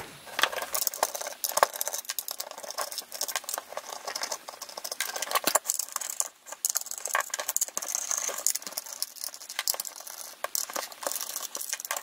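Small metal clicks and rattles as hex standoff screws are unscrewed from the DVI connectors with a small hex socket and set down among loose standoffs on the bench; the clicks come irregularly throughout.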